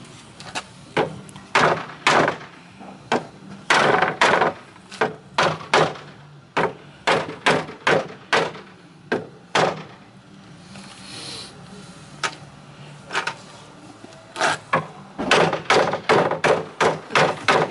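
Boards of an old wooden pallet being struck to knock them loose: dozens of sharp wooden knocks and thuds in irregular runs, sometimes several a second. A low steady hum runs underneath.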